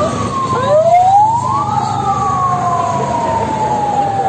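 Vehicle siren wailing: its tone climbs quickly and then slides slowly down, and a second wail starts about half a second in while the first is still falling. The rumble of passing vehicles lies underneath.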